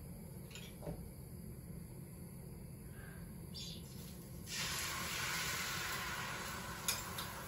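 Hot oil in a frying pan breaks into a steady sizzle about four and a half seconds in, as food goes into the pan. Before that there is only a low hum and a few light clicks.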